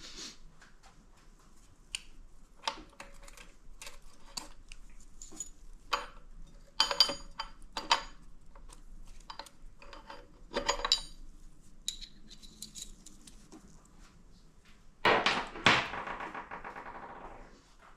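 Metal automatic-transmission parts clinking and clattering as they are handled and set down, a series of sharp clinks with short ringing. Near the end a louder metallic clank rings on for about two seconds.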